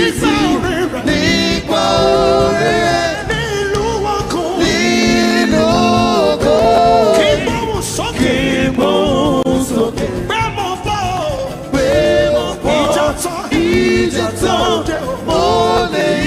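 Live Yoruba gospel praise music: singing with a band and drums playing steadily underneath.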